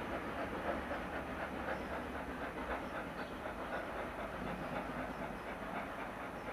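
Steam locomotive hauling a train past, a quick even beat of exhaust and running gear over the low rumble of the wheels on the rails.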